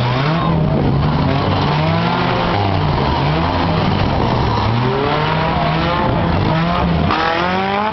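Several four-cylinder demolition derby cars' engines revving hard, their pitches overlapping and repeatedly rising and falling as the cars push against each other.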